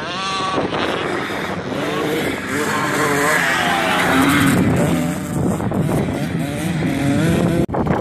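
Small dirt bike engine revving up and falling back again and again as it rides past, with wind noise on the microphone. The sound drops out abruptly for a moment near the end.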